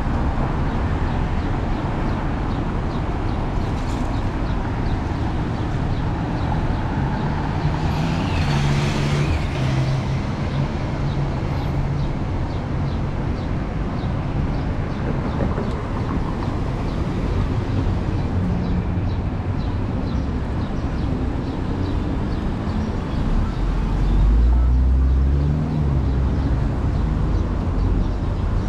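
Downtown street traffic heard from the sidewalk: a steady wash of passing cars and other vehicles. A brief hiss comes about eight seconds in, and a louder, deep rumble of a passing heavy vehicle comes near the end.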